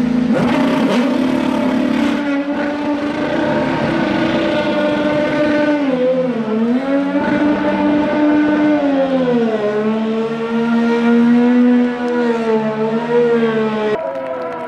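Honda-powered Dallara IndyCar's 2.2-litre twin-turbo V6 held at steady revs during a tyre-smoking burnout, its pitch sagging and recovering twice, about six and nine seconds in. The note breaks off abruptly just before the end.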